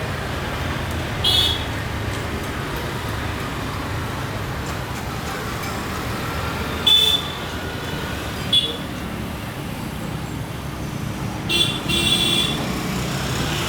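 Steady low rumble of road traffic with short high-pitched horn toots about a second in, twice between seven and nine seconds, and a longer double toot near twelve seconds.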